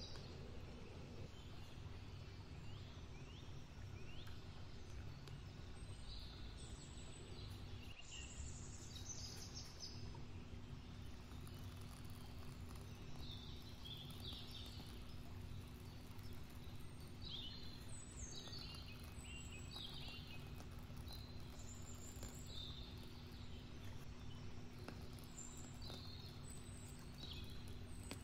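Small birds chirping on and off throughout, over a faint steady hum and a low rumble.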